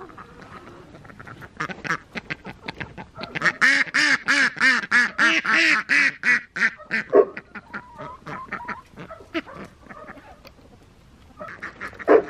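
A flock of runner ducks quacking, a fast run of short quacks that builds a few seconds in and then thins out to scattered calls.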